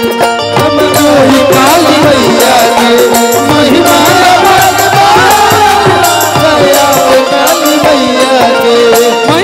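Live band music for a Bhojpuri devotional song: tabla-style hand drums keep a steady beat under a rattling shaker and a bending melody line.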